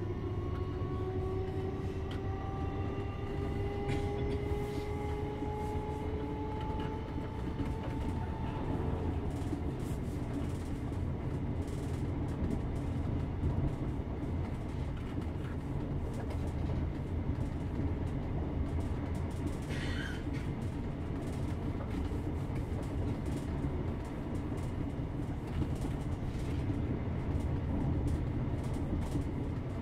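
Interior of a Class 321 electric multiple unit on the move, with a steady running rumble. Over the first several seconds a traction motor whine rises slowly in pitch as the train gathers speed, then fades into the running noise. There is a brief high squeal about two-thirds of the way through.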